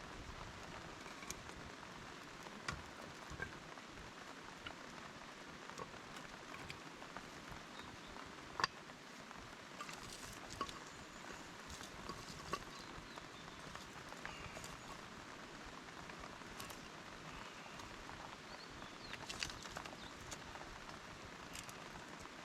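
Steady rain patter with scattered sharp ticks and drips, one louder pop a little over a third of the way in.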